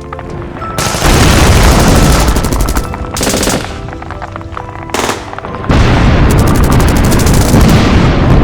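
Battle sound effects: rapid machine-gun bursts and loud explosion booms, one about a second in and another about six seconds in that carries on, over faint background music.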